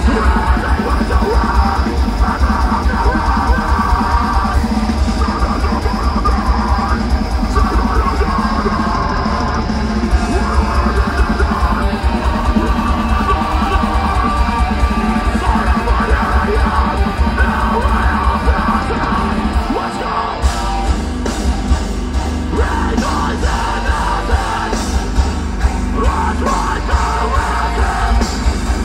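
Deathcore band playing live through a festival PA, heard from within the crowd: heavily distorted electric guitars, pounding drums and yelled vocals. About twenty seconds in the low end cuts out for a moment, then the band comes back in with sharper drum and cymbal hits.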